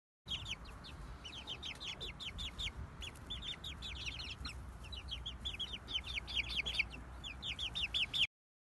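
Young chickens peeping: many short, high, falling peeps, several a second and overlapping, over a low rumble.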